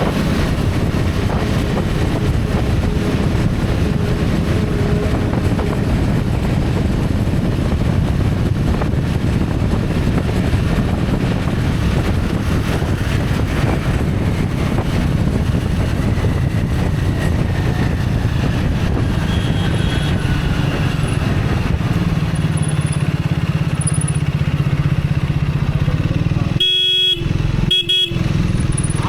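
Riding a motorcycle in road traffic: steady engine and road or wind noise, with a few short horn toots in the second half.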